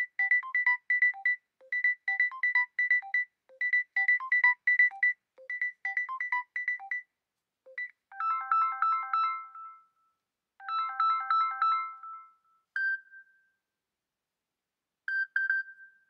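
Samsung Galaxy S23 FE ringtones playing. First comes a quick, repeating pattern of short electronic beeps in groups, for about seven seconds. About eight seconds in it changes to a slower melody of tones that plays twice, and a few single tones follow near the end.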